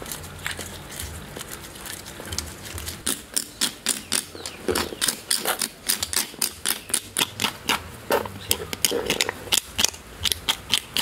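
Metal spoon scraping the scaly hide of a small crocodile to take off its dark outer skin: quick, sharp scraping strokes, about three or four a second, starting about three seconds in.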